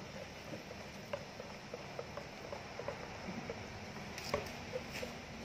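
Wire whisk stirring thin cake batter in a glass bowl: faint wet squishing with scattered light ticks, and a couple of sharper clicks near the end.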